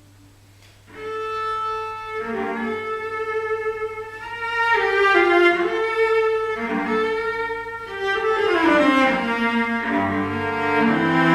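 Cello built after the 1740 Montagnana model, played with the bow, unaccompanied. After a soft first second, a melodic passage of bowed notes climbs into the upper register and comes back down to low notes near the end.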